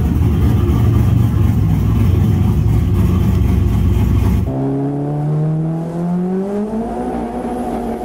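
Turbocharged 5.3 LS V8 in a 2000 Camaro, with a stage 2 cam, idling on its original ECU after running badly. About halfway through it cuts abruptly to a different car's engine heard from inside the cabin, its pitch rising steadily as it accelerates.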